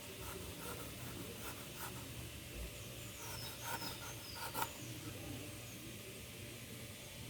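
Knife cutting and scraping the pulp off a macaúba palm fruit: a series of short clicks and scrapes, with faint high chirps in the background.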